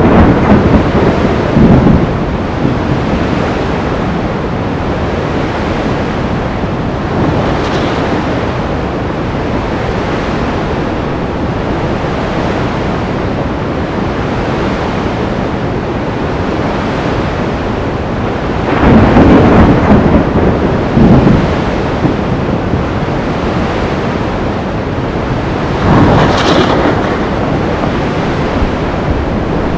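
Stormy sea: a steady wash of surf and wind, with louder surges of thunder and crashing waves at the start, about two-thirds of the way through, and again near the end.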